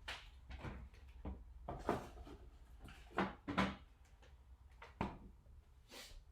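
Scattered light knocks and clicks of kitchen things being handled, with two louder knocks a little past the middle.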